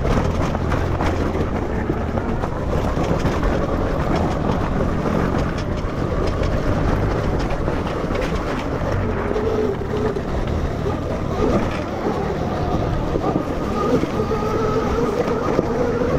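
Electric enduro motorcycle, a KTM 250 SX-F frame converted to a 12 kW MG160A electric motor, being ridden off-road: a steady dense rush of riding noise with no engine, and from about halfway a faint wavering whine from the motor.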